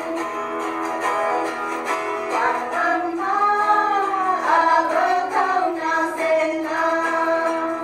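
Music: voices singing a melody over guitar accompaniment.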